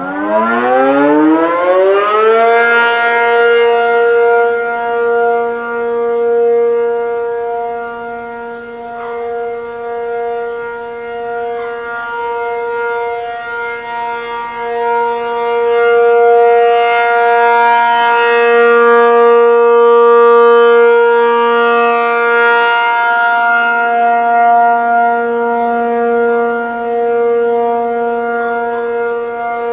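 American Signal RM-135 rotating outdoor warning siren (50 hp, 8/12 port ratio) heard from about a mile away, sounding the Alert signal. Its pitch rises over the first two seconds or so as it finishes winding up, then holds a steady tone. The loudness swells and fades as the horn rotates.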